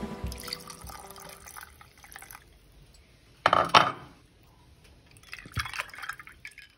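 Liquid poured over ice into a glass tumbler: first whiskey from its glass bottle, then cola, which fizzes and crackles near the end. A brief, louder knock comes about halfway through.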